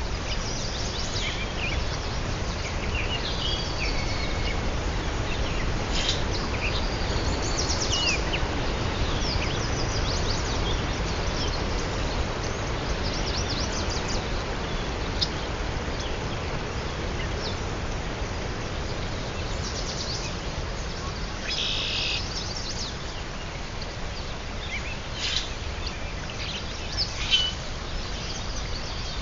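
Birds chirping and calling in scattered short phrases, busiest in the first few seconds and again about two-thirds of the way through, over a steady background rumble and hiss.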